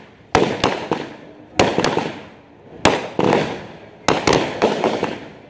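Aerial fireworks going off in rapid succession: about a dozen sharp bangs in small clusters, each trailing off in a short crackle and echo.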